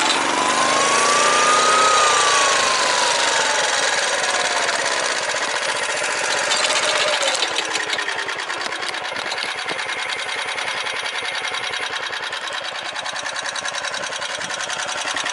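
Motor Sich walk-behind tractor's engine running while it pulls a potato digger through the rows. Its pitch rises over the first couple of seconds, falls away over the next few, then holds steady.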